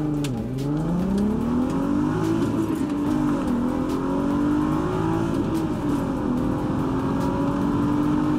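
Mk4 VW R32's 3.2-litre VR6 engine under full throttle in a standing-start acceleration run, heard from inside the cabin. Its pitch climbs, dips twice as the manual gearbox is shifted up, and holds high near the end.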